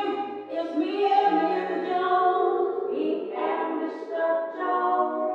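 Choral music: several voices singing long held notes together without instruments, the chord shifting every second or so.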